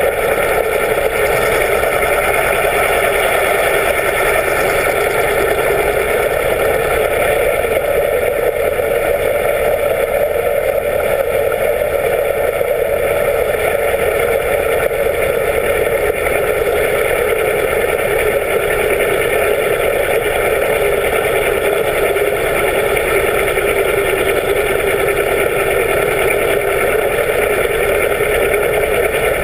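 A yacht's engine driving its 16-inch, two-blade folding propeller, heard underwater as a steady, unchanging drone.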